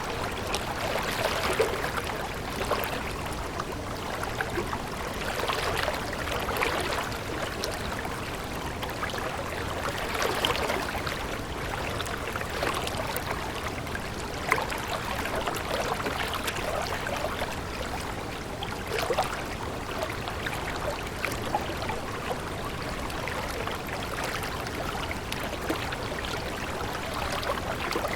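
Running water of a stream, a steady flow with brief irregular surges.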